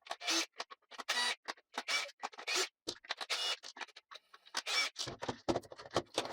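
Irregular scratchy scraping and clicking of a driver bit turning T15 screws out of the compressor's plastic housing, in quick uneven strokes.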